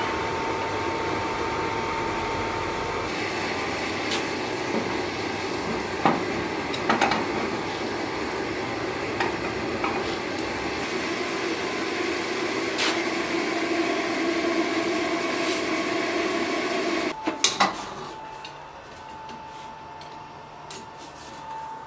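Propane gas forge burning with a steady rush, with a few sharp metallic clanks of the blade and tongs against the forge. Near the end the rush falls away after a last clank, leaving a quieter background with a thin steady high tone.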